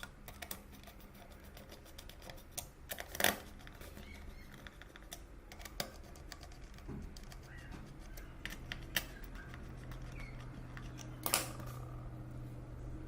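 Irregular light clicks and taps, scattered through, with two louder ones a few seconds in and near the end, over a faint low hum.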